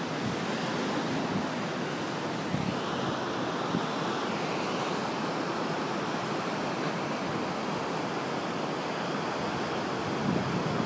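A steady wash of ocean surf breaking over coastal rocks, with wind blowing on the microphone.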